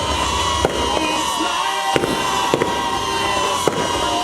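Fireworks going off: four sharp bangs about a second apart over a steady noisy hiss.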